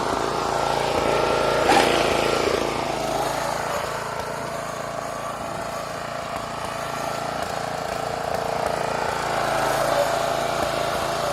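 Snapper riding mower's engine running steadily as the mower is driven, easing off a little in the middle and picking up again near the end.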